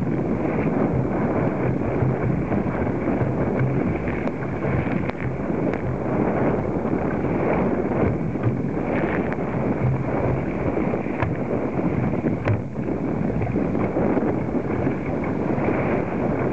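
Wind buffeting the microphone and water rushing and slapping along a sit-on-top kayak's hull as it runs through choppy, wind-driven waves: a steady, muffled rush with a few small splashes.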